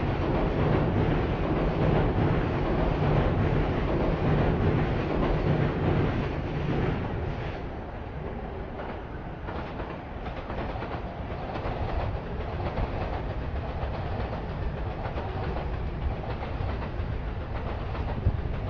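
A train running past with a rumble and rail clatter, loudest for the first seven seconds or so, then easing off into steady street-level city noise.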